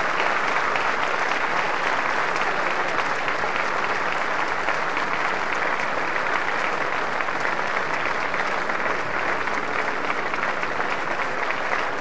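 Theatre audience applauding, a dense, steady clapping that holds at an even level throughout.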